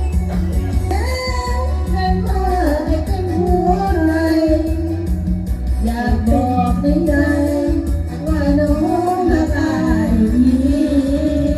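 Girls singing a melody in clear, high voices over backing music with a steady, repeating bass beat.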